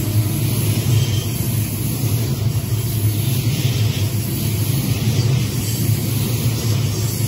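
Union Pacific manifest freight train's tank cars rolling past close by: a steady, loud low rumble of steel wheels on the rails.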